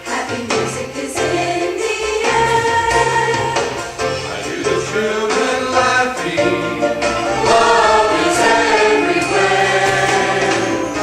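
A choir singing a Christian song with instrumental accompaniment and a pulsing bass line.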